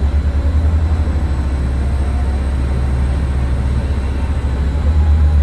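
Ninja Hattori-kun–liveried JR West KiHa 40-series diesel railcar running past at low speed, its engine and running gear making a steady low drone.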